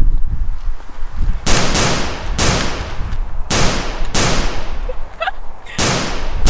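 Gunshot sound effects: about eight sharp shots in three quick groups, each with a long fading tail, over a low rumble.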